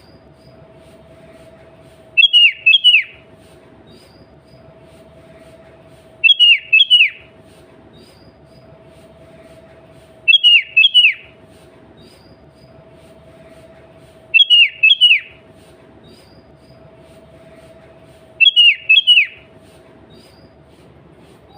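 Sooty-headed bulbul giving a short phrase of three or four quick, downward-sliding whistled notes, repeated about every four seconds, five times in all. A steady low hum runs underneath.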